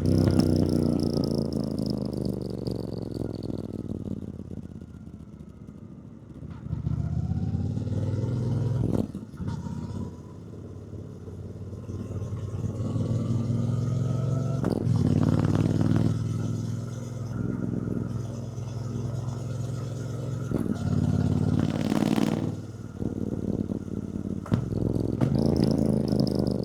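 Triumph Bonneville T120's 1200 cc parallel-twin engine on the move: it slows with the note falling over the first several seconds, then pulls away again, rising in pitch through repeated pulls broken by short dips in the engine note.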